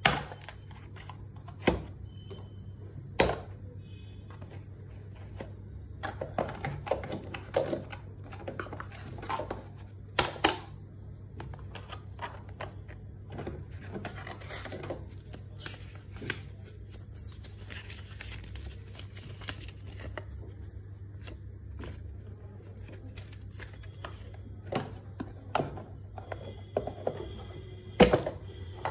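Hands handling a wireless tattoo pen and its packaging: scattered sharp clicks and taps with bursts of handling noise over a steady low hum. The loudest click comes near the end.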